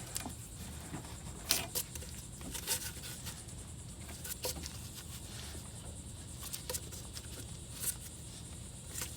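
A few scattered light clicks and taps as a pry tool works at a T1N Sprinter's loose harmonic balancer, whose outer ring has come free of its rubber bond so the balancer moves when it shouldn't: a failed balancer.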